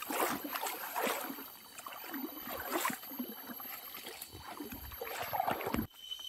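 A hiker's feet wading and splashing through shallow river water, irregular splashes about once a second, cutting off abruptly near the end.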